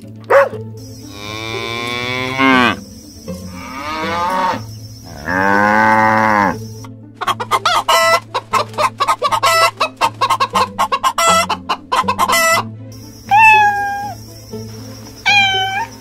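Cow mooing in several long calls that fall in pitch, then a rapid run of chicken clucking, then a few short cat meows near the end.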